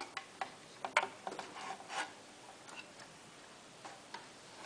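Irregular light clicks and knocks of a plastic-cased digital electricity meter being handled beside its cardboard box, most of them in the first two seconds and the loudest about a second in.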